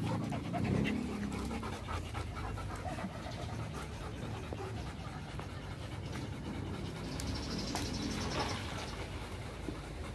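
Several golden retrievers and a black dog panting steadily, tired out from the walk.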